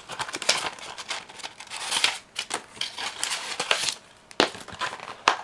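Plastic bag packaging and paper leaflets being handled and pulled out: irregular crinkling and rustling with small clicks.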